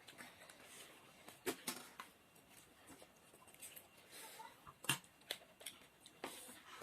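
Person eating close to the microphone: scattered sharp clicks and smacks of chewing, with a louder click about five seconds in.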